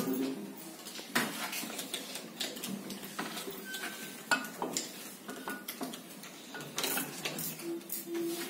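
Scattered metal clinks and knocks as a manual gearbox is assembled by hand: the cast aluminium rear extension housing is slid over the main shaft and seated against the gearbox casing.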